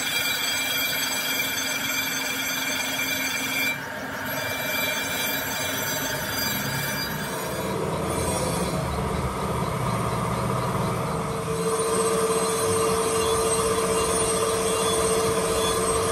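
Crankshaft grinding machine with its grinding wheel grinding the steel journals of a turning crankshaft: a steady, whining grind over the machine's running noise. The sound changes character twice, about 4 and 7.5 seconds in, with a steadier, lower whine in the later part.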